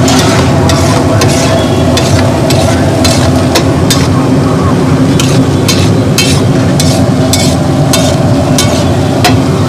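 Metal spatula stirring chopped vegetables on a large flat tawa griddle, scraping and clanking irregularly against the metal over a steady frying sizzle.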